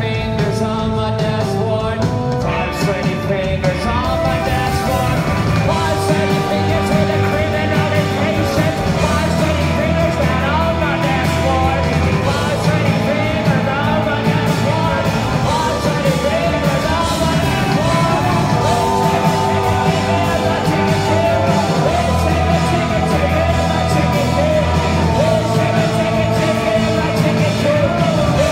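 Live rock band playing steadily: electric guitars, bass and drums under a male singer's vocals.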